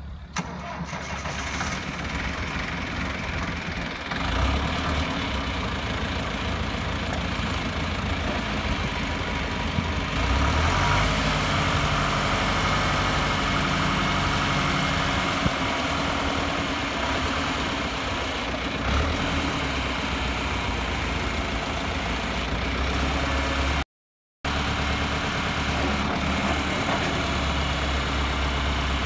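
John Deere 2755 tractor's 3.9-litre four-cylinder turbodiesel (4239T) running steadily while the tractor is driven. The engine grows louder over the first few seconds and again from about ten seconds in, with a brief break in the sound near the end.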